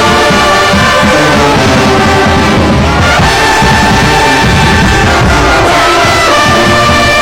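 Loud brass band music, with horns such as trombones and trumpets playing long held notes that shift pitch every second or two over a steady low rhythm.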